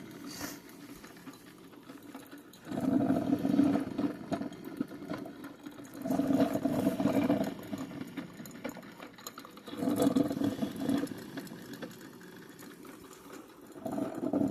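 Drip coffee maker's heating element gurgling and sputtering as it pushes hot water up its tube, in four spells about a second and a half long, a few seconds apart. This is the sputtering typical of the end of a brew cycle as the reservoir runs low.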